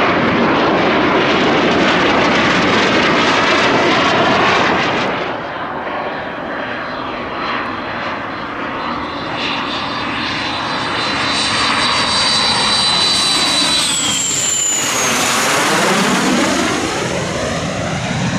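Canadair CT-114 Tutor jet of the Snowbirds flying low on landing approach with its gear down, its single turbojet giving a steady rush with a high whine. About fourteen seconds in, the whine drops in pitch as the jet passes overhead and away.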